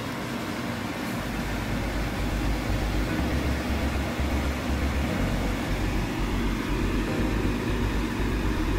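Kitchen range-hood vent fan running with a steady whir, with a low rumble coming in about a second in.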